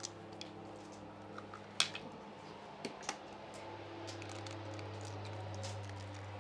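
Hen's eggs cracked on the rim of an enamel pot and broken into a cauliflower fritter mix: a few sharp clicks and taps, the loudest about two seconds in. A steady low hum runs behind.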